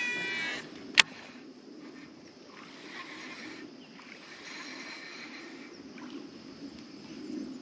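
Fishing reel's spool whirring high at the end of a cast, fading out about half a second in, then a single sharp click about a second in, followed by a faint, steady low rushing sound.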